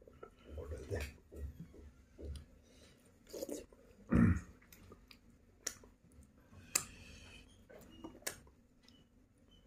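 A person eating soft dhido by hand: quiet, irregular chewing and mouth noises, with one louder mouth sound about four seconds in and a few sharp clicks in the second half.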